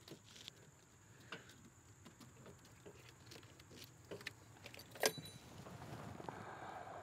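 Faint clicks and light rattles of wiring-harness connectors and loom being handled on top of an engine, with one sharper click about five seconds in and a soft rubbing noise near the end.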